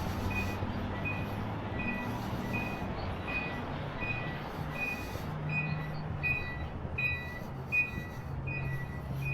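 A vehicle's backup alarm beeping steadily, a short two-tone electronic beep about one and a half times a second, over the low rumble of an idling engine. A brief knock comes near the end.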